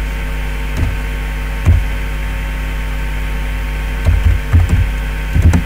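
Computer keyboard keys pressed as dull knocks, two spaced ones and then a quick run of them near the end, over a loud steady electrical mains hum.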